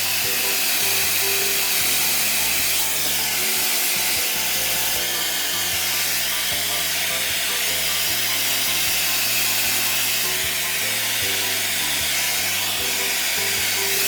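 Hand-held hair dryer blowing steadily on the hair roots, a constant airy hiss, switched off abruptly at the very end. Background music plays beneath it.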